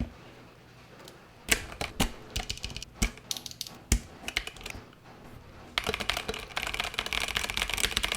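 Typing on a Mountain Everest 60 mechanical keyboard with pre-lubed Mountain switches: a few separate keystrokes at first, then fast continuous typing from about six seconds in.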